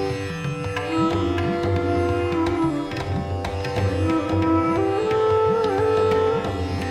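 Instrumental background music: a melody of held notes that bend up and down in pitch over a steady drone, with repeated low drum strokes underneath.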